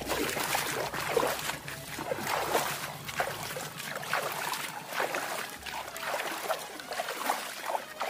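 Hands splashing and sloshing in shallow, muddy ditch water as they are rinsed, in an uneven run of small splashes.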